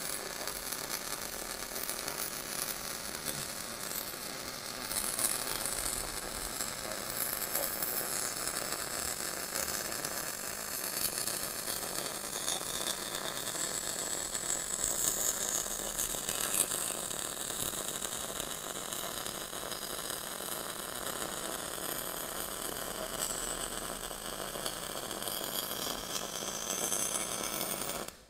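MIG welding arc crackling steadily as a bead is run along a steel tube, stopping abruptly at the very end.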